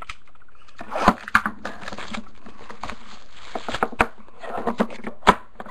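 Shrink-wrap being torn off a sealed box of trading cards and the box being opened: plastic crinkling and tearing, with a few sharp snaps and clicks.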